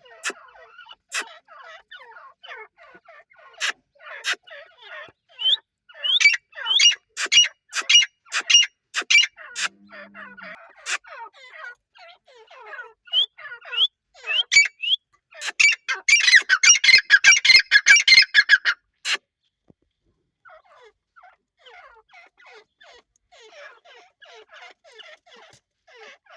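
A group of francolins (teetar) calling, with many quick chirps and squeaky notes and sharp clicks mixed in. The calls build to a dense, loud burst about sixteen seconds in, stop briefly, then go on as fainter chatter.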